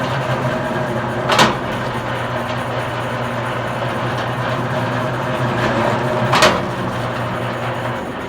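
Electric commercial wire stripping machine running steadily with a low hum while pulling thick copper cable through, with two sharp knocks about five seconds apart; the motor hum stops near the end.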